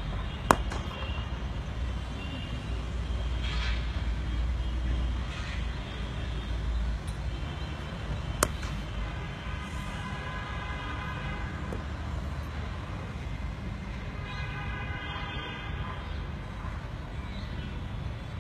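Two sharp cracks of a cricket bat striking the ball in the nets, about eight seconds apart, over a steady low outdoor rumble with long horn blasts midway and again near the end.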